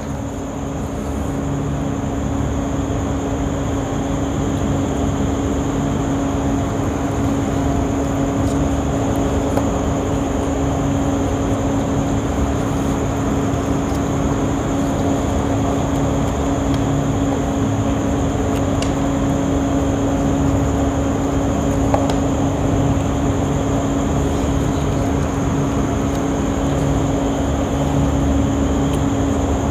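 A steady mechanical drone with a constant hum and a faint high whine, as from a running electric motor, with a few faint clicks over it.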